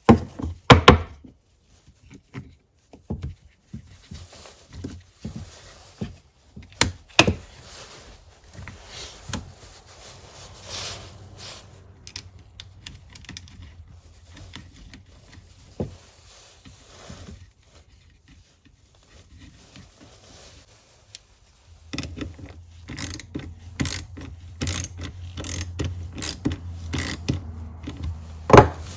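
Irregular clicks, knocks and small metallic rattles of a small battery-powered mini chainsaw being handled and reassembled, its bar and chain fitted and the chain tension adjusted by hand. A low steady hum joins in about two-thirds of the way through.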